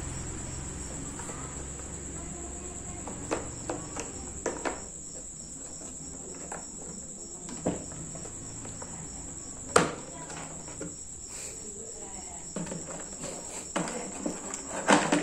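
Scattered clicks and knocks of metal drill bits and a hard plastic tool case being handled, the sharpest one about ten seconds in and a quick cluster near the end. A steady high-pitched insect trill, like a cricket, runs underneath.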